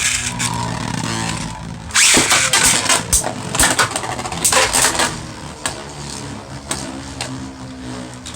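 Two Beyblade Burst spinning tops whirring in a plastic stadium, with a cluster of sharp clashes and hits from about two to five seconds in. After that the tops settle into a steadier, quieter spinning whir.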